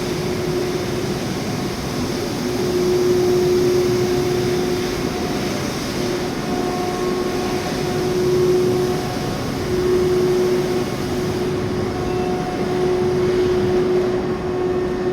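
Induction melting furnace running, a steady noisy roar with a pitched electrical hum that swells and fades several times.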